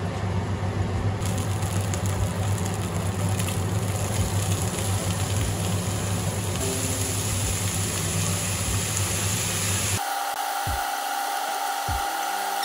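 Vegetables sizzling in a hot frying pan as they are stir-fried with a wooden spatula, over a steady low hum. The sizzle grows brighter twice. About ten seconds in the hum cuts off suddenly, leaving a thinner hiss with a steady tone.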